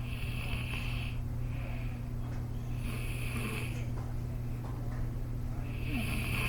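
A boy snoring in his sleep, a snore every few seconds, over a steady low hum.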